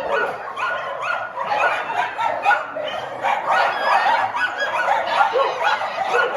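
A pack of shelter dogs barking and yipping at once, many short overlapping barks running on without a break.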